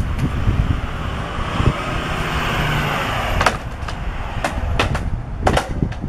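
Wind rumbling on the microphone over a steady outdoor hiss, which fades about halfway through. A string of sharp clicks and knocks follows in the last few seconds.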